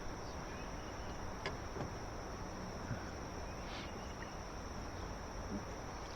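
Steady high-pitched insect chorus, like crickets, droning without a break over a soft outdoor background hiss, with a couple of faint ticks.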